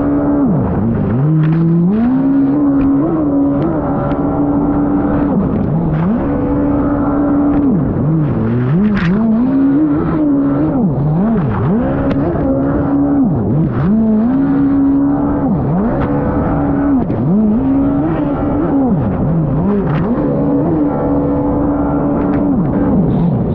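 Racing jet ski engine at high revs, its pitch dropping and climbing back every second or two as the throttle is eased and reopened through hard turns, over a steady hiss of spray and wind.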